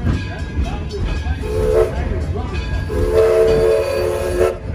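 Steam locomotive whistle sounding a chord of several notes: a short blast, then a longer one, over the low rumble of the moving train.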